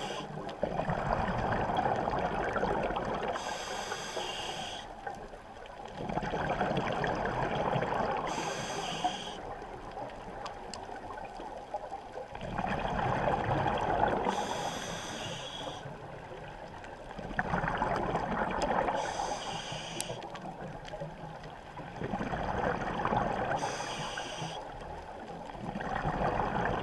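Scuba diver's regulator breathing underwater: bursts of exhaust bubbles rumbling and gurgling, each with a short hiss, repeating about every five seconds in an even rhythm, five breaths in all.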